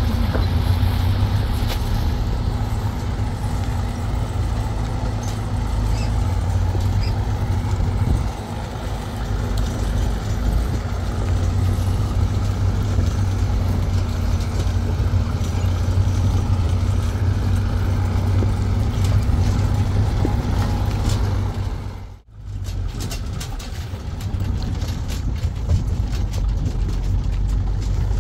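A motor vehicle's engine running steadily with a low drone. It cuts out for a moment about 22 seconds in, then resumes.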